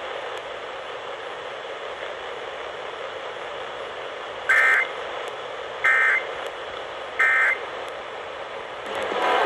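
Emergency Alert System end-of-message data signal over AM radio hiss: three short warbling digital bursts, each under half a second, about a second and a half apart, starting about four and a half seconds in. It marks the end of the alert.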